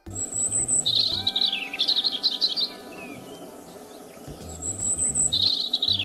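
European robin singing: a phrase of high, thin, rapid warbling notes, a pause, then a second phrase starting about four and a half seconds in.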